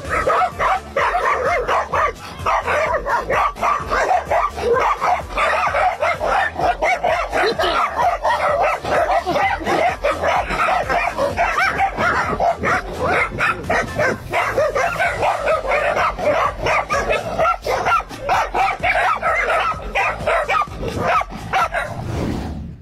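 A pack of feral dogs barking and yelping without a break, many dogs at once, fading out near the end.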